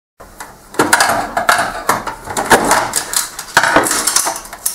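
Plastic front paper-feed tray assembly of an HP LaserJet 6P being handled and lifted out of the printer frame: a run of irregular hard plastic knocks and rattles.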